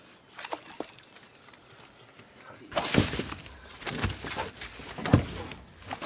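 A few faint clicks, then three loud thumps with scraping on a boat deck, about three, four and five seconds in, the last the sharpest.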